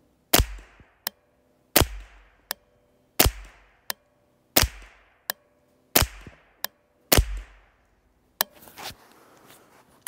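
JP15-22 semi-automatic .22 LR AR rifle fired rapidly: six shots about a second and a half apart, each a sharp crack with a short ring-out and a faint click following it. Near the end the firing stops and light handling noise follows.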